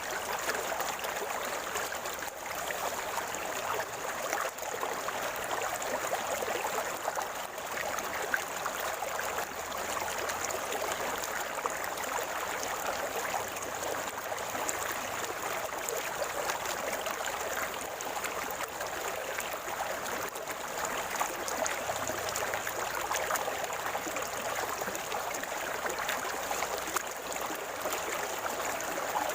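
Shallow river water gurgling and splashing steadily over rocks.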